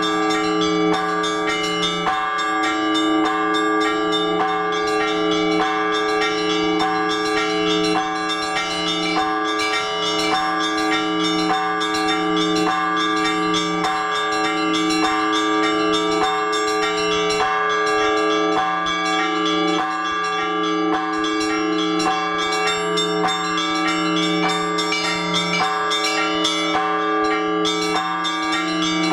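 Orthodox church bells rung by hand from a bell tower: many bells chime together in quick succession over the long, steady hum of the larger bells, the ringing of the bells for the liturgy.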